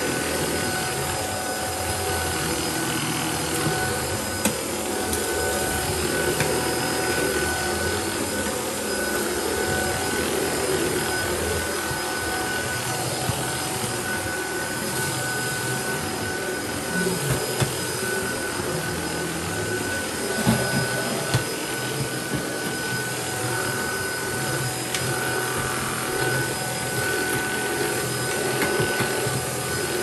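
Hoover Evolve stick vacuum running steadily, its motor giving a constant high whine, with a few sharp clicks as grains of rock salt are sucked up.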